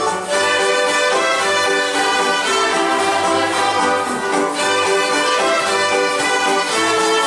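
A violin ensemble playing a lively dance tune together, with a low bass part moving in a steady rhythm underneath.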